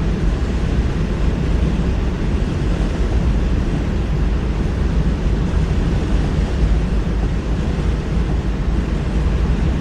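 Steady road and engine noise of a car driving, heard from inside the cabin: an even low rumble with no distinct events.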